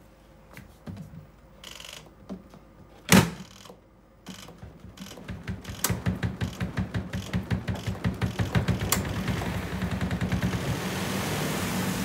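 Spin-dryer lid of a Twin Spin XPB36-388S twin-tub portable washing machine shutting with a single loud thunk about three seconds in, after a few light knocks. The spin motor then starts with a rapid rhythmic pulsing over a low hum that grows louder and smooths into a steady whir as the basket comes up to speed.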